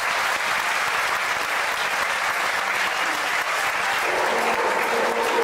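Large audience applauding steadily at the end of a musical number; about four seconds in, a faint voice begins over the clapping.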